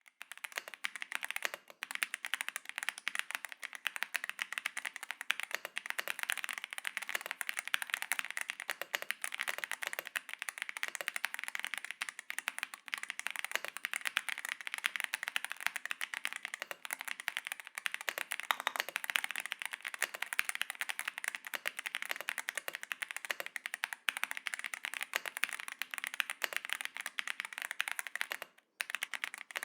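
Continuous fast typing on an Attack Shark X87 Ultra keyboard: a dense, even stream of key clicks and clacks from its switches, with one brief pause near the end.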